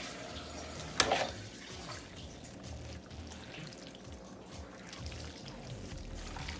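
Faint background music, with one sharp click about a second in.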